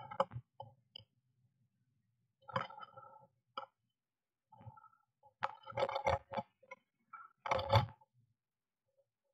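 Blue tit moving about inside a wooden nest box, its feet and wings rustling and scraping the moss and wool nest lining and brushing the box walls. The sound comes in irregular bursts with quiet gaps between them, the biggest cluster a little past the middle.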